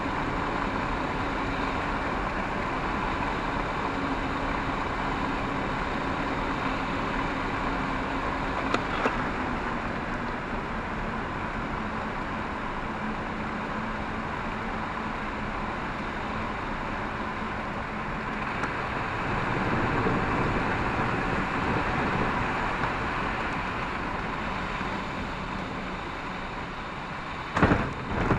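Steady airflow noise rushing past the cockpit of an Ikarus C42 microlight gliding with its engine off and propeller stopped. Near the end come a few sudden sharp bumps as the wheels touch down on the grass strip.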